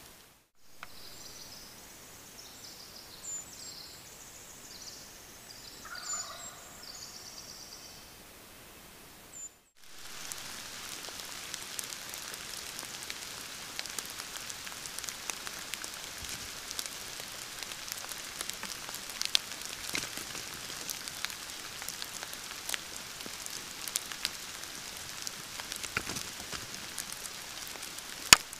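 Wild turkeys calling, with short high chirps over them and a lower call about six seconds in. After a cut, a steady hiss with many small scattered clicks and taps takes over, with one sharp loud click near the end.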